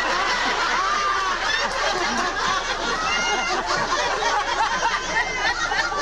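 Theatre audience laughing, many voices at once with chuckles and snickers overlapping.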